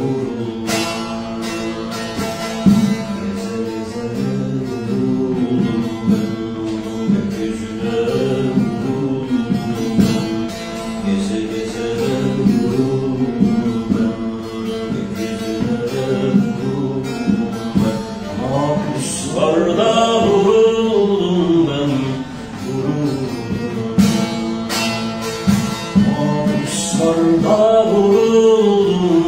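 Bağlama (long-necked Turkish saz) played with rapid plucking in a Turkish folk song (türkü). A man's singing voice comes in about two-thirds of the way through and again near the end.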